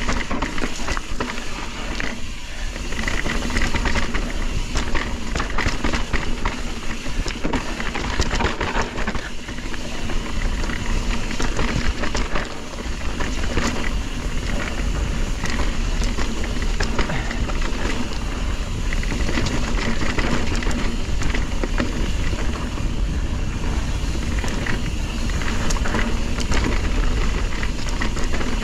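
Mountain bike ridden over rough trail: a constant low rumble of wind on the microphone with tyre noise and dense, irregular clattering and rattling from the bike.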